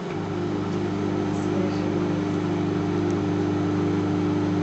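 Microwave oven running: a steady, even hum.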